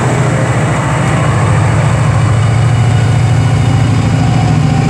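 Direct Rail Services locomotive pair (Class 88 88003 with Class 68 68034) pulling away from the platform: a heavy diesel engine runs with a steady low drone, growing slightly louder.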